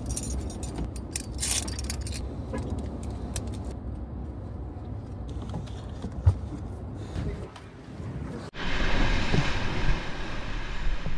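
Low rumble of a vehicle on the move, with light rattling and clinking over it. About two thirds of the way in it cuts abruptly to steady wind and water noise.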